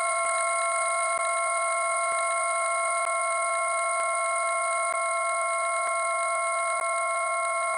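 A steady electronic tone: several pure pitches sounding together as one held chord, unchanging in pitch and level, with faint ticks about once a second.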